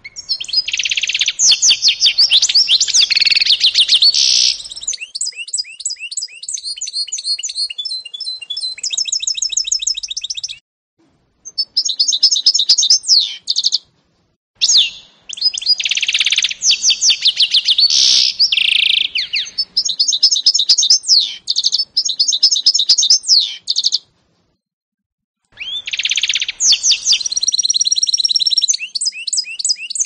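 Canary × goldfinch mule singing long bouts of rapid, high twittering trills and sliding notes, stopping briefly three times.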